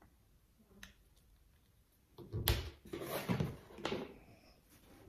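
Handling noise on a sewing table while marking fabric pieces with a ruler: a faint click, then about two seconds in a thump followed by about two seconds of rustling and knocking.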